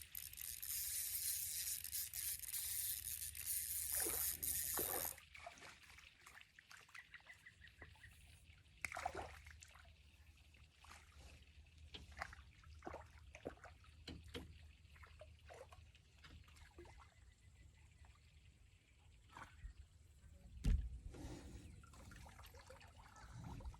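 Water trickling and dripping, with a steady high hiss that cuts off about five seconds in, then scattered small clicks and drips, and a low thump near the end.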